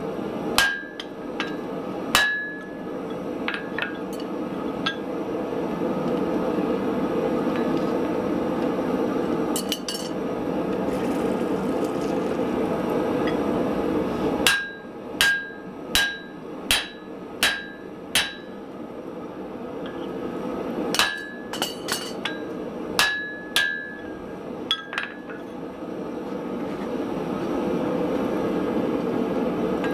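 Hammer blows on a steel punch driven into a glowing hot steel block on the anvil, punching the eye of a ball peen hammer head. A few single strikes come first, then a quick run of about six blows and another group, each with a short metallic ring, over a steady rushing noise.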